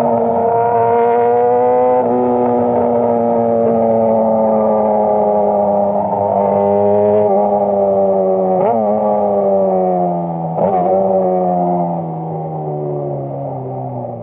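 A 600cc inline-four sport bike engine running at high revs while the bike slows steadily, its pitch gradually falling. Two quick rev blips come at about 9 and 11 seconds, as on downshifts. The engine gets quieter near the end.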